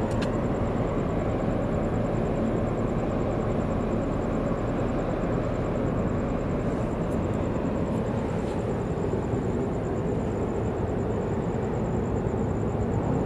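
Steady low rumble of a large container ship's engines as it passes close by, even throughout, with a thin steady high-pitched tone above it.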